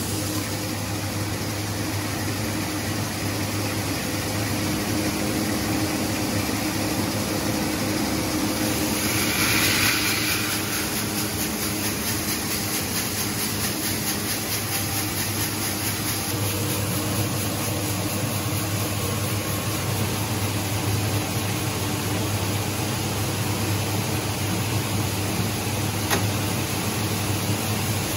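Rice husking machine running steadily with a low hum and a rushing hiss, as husked brown rice pours from its outlet spout into a paper rice bag. The rush swells briefly about nine to ten seconds in.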